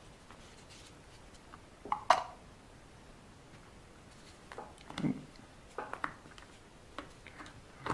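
Scattered handling noises from hands working on an RC car tyre and its glued tape lining: a few short taps and rubs, with one sharper click about two seconds in.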